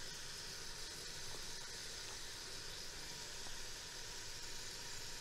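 Pork belly chunks searing in hot bacon grease in an electric pressure cooker's pot: a steady, faint sizzle while the meat browns.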